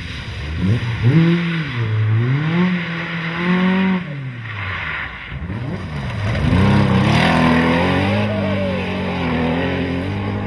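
Historic rally cars driven flat out, engines revving up and dropping back through gear changes. First a Ford Escort Mk2 goes through a corner; after a cut about four seconds in, a Porsche 911's air-cooled flat-six takes over.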